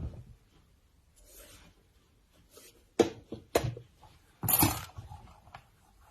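Old mechanical alarm clocks being handled and set down on a hard surface: a knock at the start, three sharp knocks in quick succession about three seconds in, then a short, louder clatter.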